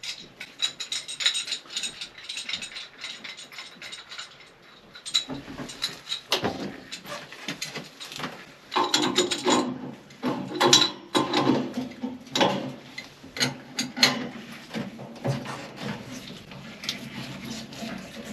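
Rapid mechanical clicking and rattling, sparse at first and busier and louder from about five seconds in, with a stretch of rough clattering around the middle.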